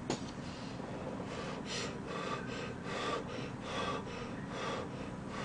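Close-miked eating sounds: wet chewing of a mouthful of scorched-rice soup and green onion kimchi, in a steady rhythm of about one chew every three-quarters of a second. A sharp click comes just after the start.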